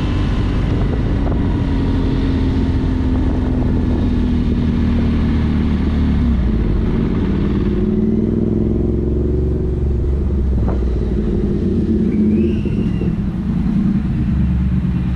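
Motorcycle engine running at low speed with wind noise on the helmet microphone; about eight seconds in the wind noise drops away as the bike slows to a crawl, leaving the engine's low running with small changes in pitch.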